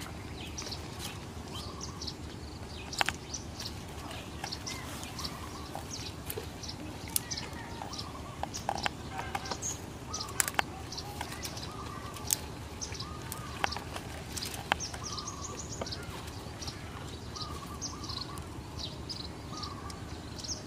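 Small birds chirping over and over in short, high calls, with a few sharp clicks here and there, over a steady low background noise.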